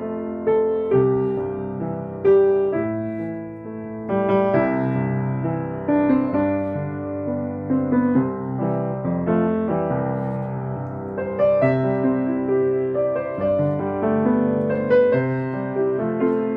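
Slow, gentle piano music: single notes and chords struck and left to die away.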